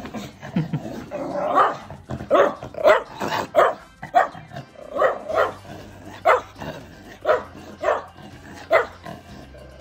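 Miniature schnauzer barking at its owner in anger: a run of about a dozen short barks, some coming in quick pairs, that stops about a second before the end.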